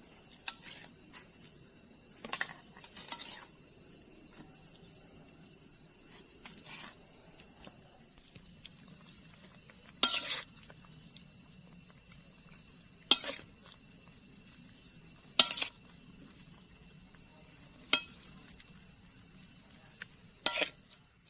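Steady high-pitched insect chorus, with sharp metallic clinks of cooking utensils against a pot or pan every two to three seconds in the second half.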